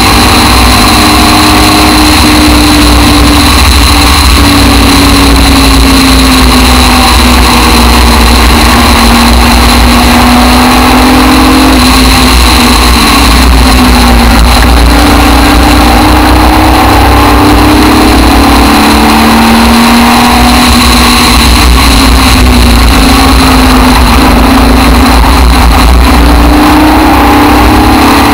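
Aston Martin DBR1 tribute racing car's engine at speed, very loud, the revs rising and falling repeatedly as the car is driven through the bends, over a constant low rumble of wind on the onboard microphone.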